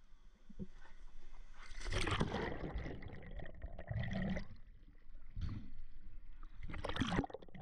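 Water sloshing and gurgling in irregular surges, about one every one and a half to two seconds, fairly quiet.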